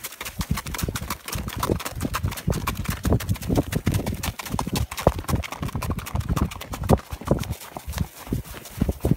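Hoofbeats of an Icelandic horse being ridden at a tölt over snowy ground: a quick, uneven run of dull thumps several times a second, mixed with knocks and rubbing from the handheld phone.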